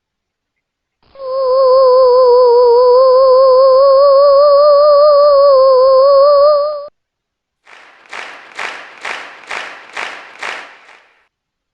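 Added sound effects: a loud, wavering, hum-like held note with vibrato lasting about six seconds, then after a short gap a run of seven quick, evenly spaced noisy pulses that fade at the end.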